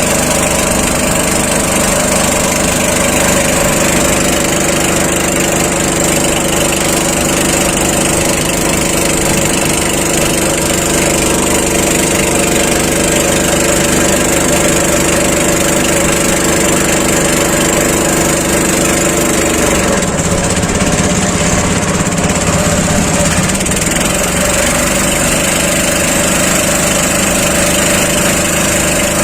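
A small engine running steadily; its tone wavers about twenty seconds in, then settles again at a slightly different pitch.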